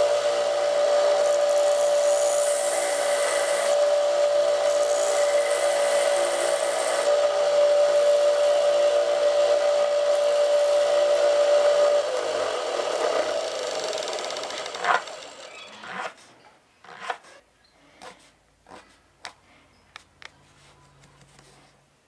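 Small benchtop power saw running with a steady motor whine while cutting the cast black resin knob. About twelve seconds in it is switched off and winds down, followed by a few light clicks and taps.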